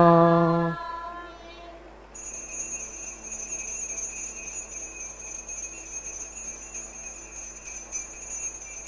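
A man's sung note ends just under a second in. From about two seconds in, an altar bell rings continuously as a steady high shimmer, marking the raising of the monstrance in blessing.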